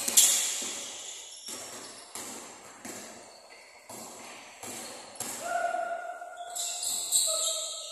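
A basketball bouncing on an indoor court floor in a large echoing gym: about seven irregular thuds, the loudest just after the start. Two drawn-out high tones come in the second half.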